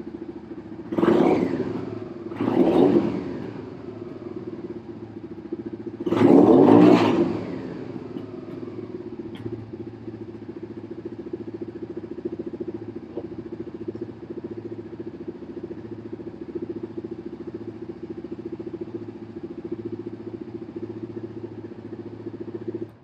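Suzuki SV650's 90-degree V-twin engine idling on choke and revved three times, about one, three and six seconds in, each rev rising and falling back to a steady idle. The engine is being run to look for its misfiring and backfiring.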